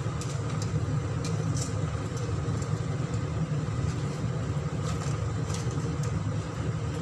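Water at a rolling boil in a wide pan on a gas stove, over a steady low rumble, with a few light ticks and pops scattered through.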